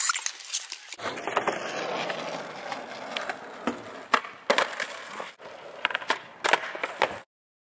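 Skateboard wheels rolling over the skatepark ground, with several sharp clacks of the board popping off and landing. The sound cuts off abruptly near the end.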